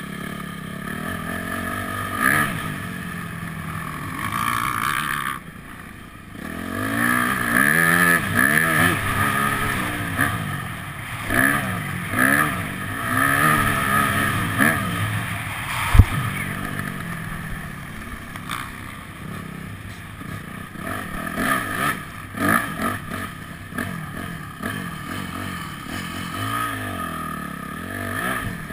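Motocross dirt bike engine revving up and dropping back again and again as it is ridden, with one sharp knock about halfway through.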